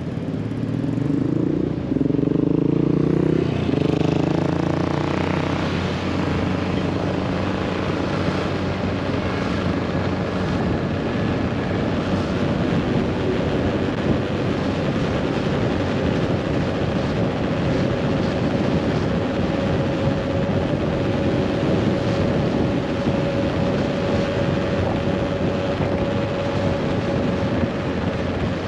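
Scooter engine pulling away, its note rising over the first few seconds, then settling into a steady cruise under wind and road noise with a faint steady whine.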